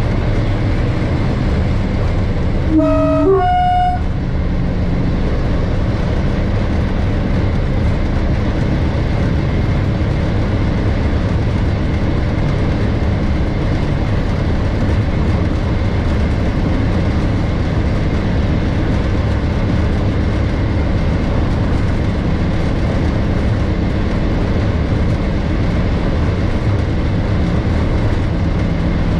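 Class 33 diesel locomotive's Sulzer eight-cylinder engine droning steadily, heard from inside the cab on the move. About three seconds in, the locomotive's two-tone horn gives one short blast, a low note followed by a high note.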